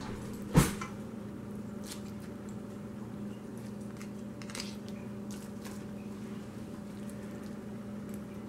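Metal fork and tongs knocking sharply once about half a second in, then a few faint clicks and scrapes as cheese-clogged pasta is worked off the tongs, over a steady low hum.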